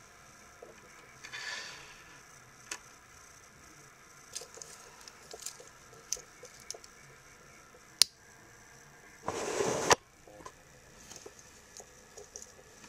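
Small clicks and clinks of a stainless steel watch bracelet being handled and its folding clasp worked on a wrist. One sharp click comes about eight seconds in, followed shortly by a brief louder rustle.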